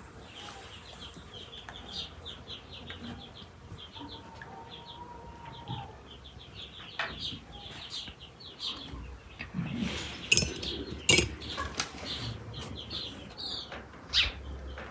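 Small birds chirping in quick runs of short repeated notes, with a few sharp clinks of tea glasses and dishes, the loudest about ten and eleven seconds in.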